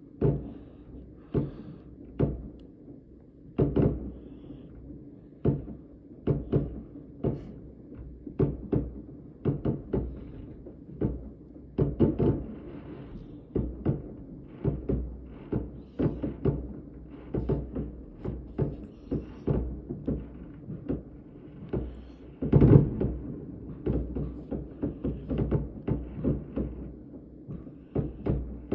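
New Year fireworks going off: an irregular string of sharp bangs, one to three a second, each with a brief echo. The loudest bang comes about three-quarters of the way through.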